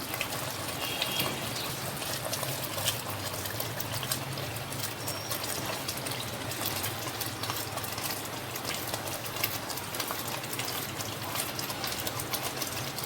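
Onion, tomato and garlic masala sizzling steadily in hot oil in a cooking pot as it is fried, with a fine crackle throughout.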